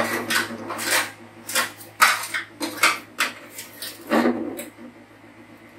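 Metal spoon scraping and clinking against a large stainless steel cooking pot as soup is scooped out: about ten short, irregular strokes that thin out near the end.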